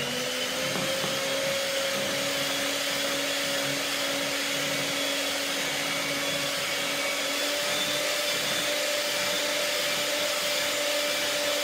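Electric hand mixer running steadily, its beaters whisking sponge-cake batter in a glass bowl: an even motor hum and whine, the final mix of the batter.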